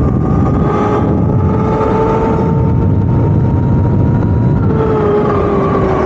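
Electric dirt bike cruising at speed: a steady motor whine that drops slightly in pitch near the end, under heavy wind rumble on a helmet-mounted microphone.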